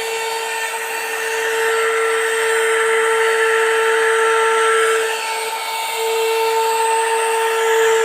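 Cordless handheld vacuum cleaner running: a steady high motor whine with a rushing airflow hiss. The hiss swells over the first few seconds, and the whine dips and wavers briefly about five seconds in before steadying again.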